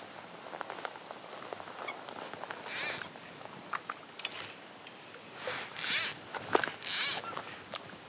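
Fly line pulled out from the reel and rod in short zipping pulls: one about three seconds in, then two more close together near the end, with light rustling and small clicks between them.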